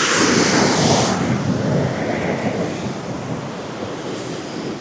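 Ocean waves washing onto the shore: a surge of surf that is loudest at the start and slowly fades as the water draws back.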